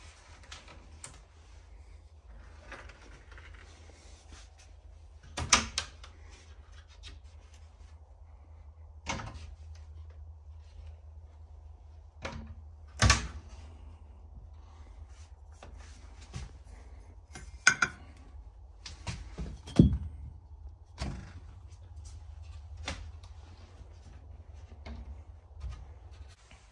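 Wooden kitchen cupboard doors being opened and shut: a handful of sharp knocks and thunks a few seconds apart, over a low steady hum.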